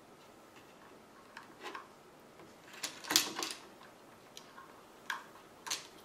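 Light clicks and knocks of a laptop hard drive and the laptop's internal metal and plastic parts being handled and fitted into the drive bay, a few at a time, with the loudest cluster about halfway through.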